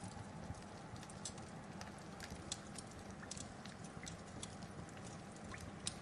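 Wood fire crackling: a steady low hiss of burning with sharp, irregular pops and snaps, several a second.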